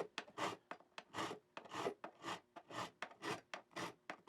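A file stroking across the ends of newly installed guitar frets, short rasping strokes about three a second, taking off the sharp square edges.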